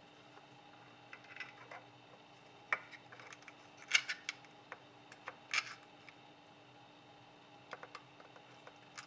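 3D-printed plastic parts clicking and knocking together as they are handled and pressed into place: a few short, sharp clicks scattered through, over a faint steady hum.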